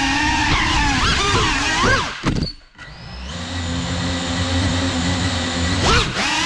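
Cinelog35 cinewhoop quadcopter's brushless motors and ducted propellers whining, the pitch rising and falling with throttle. About two seconds in the sound drops almost away for half a second, then spins back up to a steady whine, with another quick throttle swell near the end.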